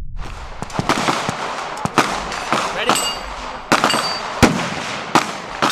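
Gunfire at a shooting range: a string of irregular, sharp shots, several guns firing at once, with range noise between them.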